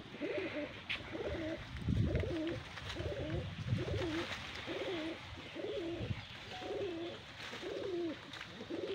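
A dove cooing: a steady run of short, rising-and-falling coo notes, repeated about twice a second.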